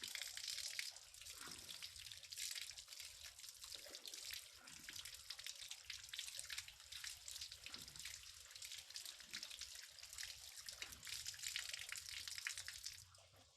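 Water running from a tap while hands are washed under the stream, a steady splashing hiss that cuts off shortly before the end.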